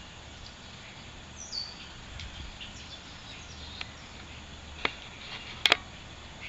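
Faint high chirps, like small birds calling, over a steady low hum, with a sharp click about five seconds in and a quick double click just after.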